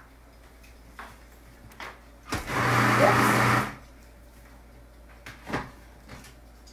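Food processor motor running in one short burst of about a second and a half, blending beet hummus: a steady low hum under a whirring noise. A few faint knocks come before and after it.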